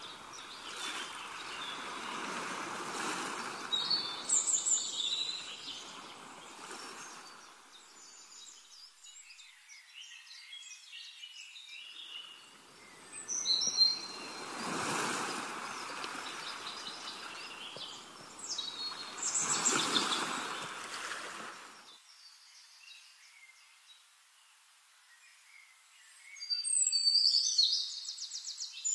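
Birds chirping and trilling in short scattered bursts over a soft rushing noise that swells and fades a few times, like an outdoor nature ambience.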